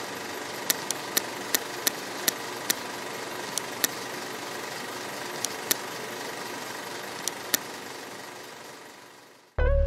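Old-film sound effect: a steady hiss and hum with scattered sharp crackling pops at irregular intervals, fading away near the end. Guitar music starts just as it dies out.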